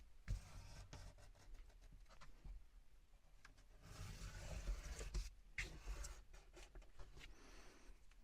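Faint rustling with scattered light clicks and taps, the rustling swelling briefly about halfway through.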